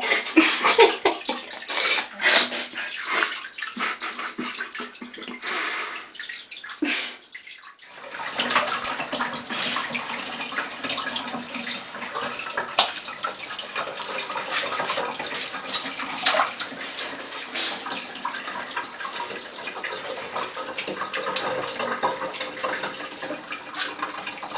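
Water splashing in a bathtub as a wet cat is washed by hand, with scattered sloshes; from about eight seconds in, water runs steadily into the tub.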